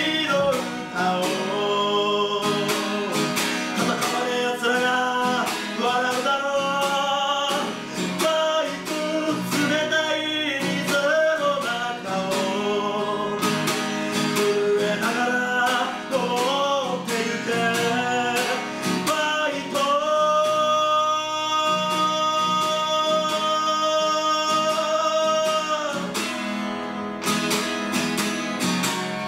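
A man singing while strumming an acoustic guitar, live. About two-thirds of the way through he holds one long note for several seconds.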